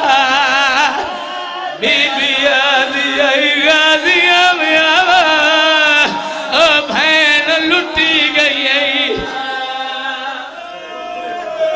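A man chanting a wailing, mournful lament into a microphone, his long held notes wavering with heavy vibrato; the chant eases off and grows quieter near the end.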